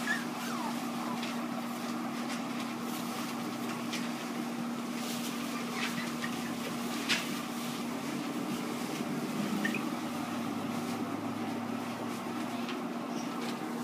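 A steady mechanical hum with one constant low tone, with a few faint clicks and rustles over it, the sharpest about seven seconds in.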